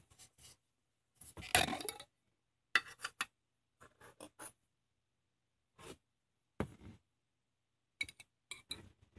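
Tabletop handling noises of a plastic yogurt tub and a metal spoon: scattered light clinks and knocks, with the loudest, a longer rustling scrape, about a second and a half in.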